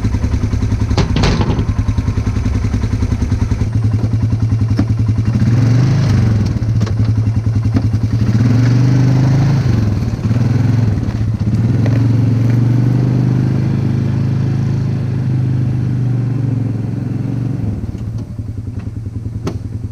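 An engine running steadily, its pitch wavering up and down from time to time, with a sharp clatter about a second in.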